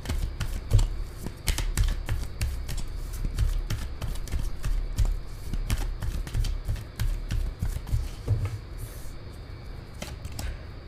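A deck of tarot cards being shuffled by hand: a continuous, irregular run of soft card clicks and flicks, with low thumps from handling.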